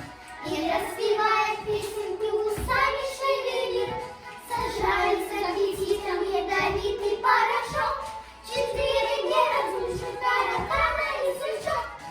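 Children singing a song in phrases, with short breaks between lines.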